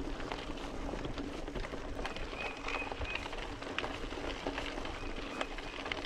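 Mountain bike (an Intense 951 XC) rolling along a dirt singletrack: steady tyre-on-dirt noise with frequent small clicks and rattles from the bike. A thin high tone sounds briefly twice.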